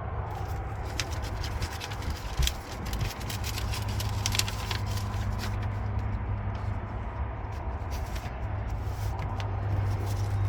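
Steady low hum of an idling vehicle engine, with scattered small clicks and rustling.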